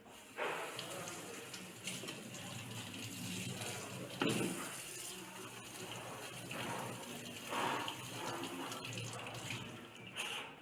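Water running from a tap into a sink during dishwashing, with occasional knocks.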